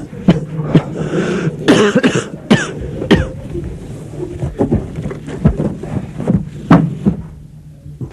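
A man coughing over and over in harsh fits, many coughs ending in a short falling voiced rasp, over a steady low hum.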